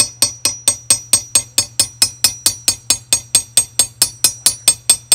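Small hammer tapping gently and steadily, about four to five blows a second, against a second hammer's polished face to peen over the end of a replacement trigger-stud screw in a Smith & Wesson Model 29-2 revolver frame. Each blow gives a sharp metallic tap with a short ring.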